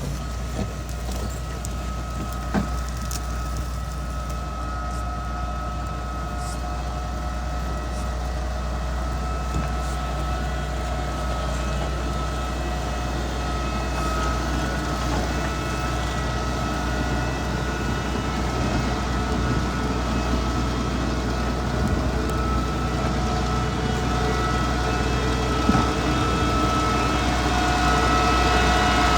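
Motor grader's diesel engine running steadily, with a steady whine above the engine note, growing gradually louder. A sharp knock comes a few seconds in and another near the end.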